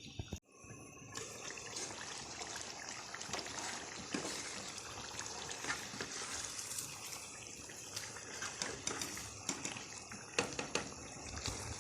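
Chicken pieces sizzling and bubbling in hot oil with ginger-garlic paste in a cooking pot as they are browned, with scattered clicks and knocks of stirring. The sizzle starts about a second in.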